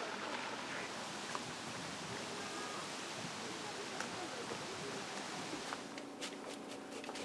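Outdoor background noise with indistinct voices of people. A few sharp clicks come near the end.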